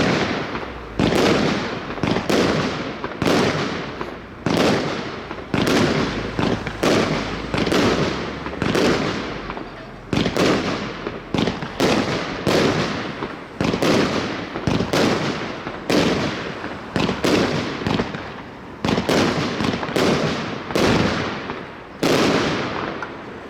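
Funke Kamuro Mix firework battery firing a steady sequence of shots, about one a second. Each shot starts sharply and dies away over about a second.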